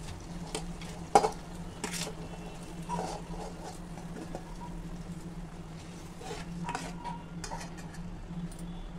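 Steel spoon scraping and clinking against a steel plate as grated raw mango is pushed off it into a pan of hot jaggery syrup, with soft patter of the shreds landing. The clinks come at irregular intervals, the sharpest about a second in, with a few more near the end.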